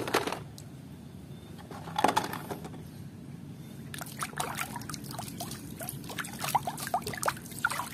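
A hand swishing and sloshing water in a plastic tub, with splashes coming thick and fast from about four seconds in. A single knock comes about two seconds in.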